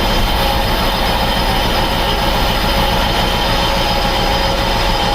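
A construction forklift machine running steadily, its engine rumbling under a high, steady hydraulic whine as the forks are lowered.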